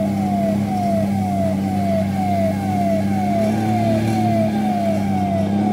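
Fire truck siren wailing in a fast repeating pattern, each sweep falling in pitch, about two a second, over the steady drone of the truck's engine.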